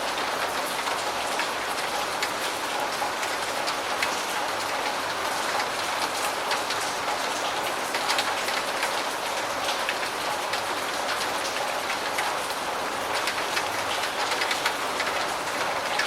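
Steady rain falling, a constant hiss with many small, sharp drop ticks scattered through it.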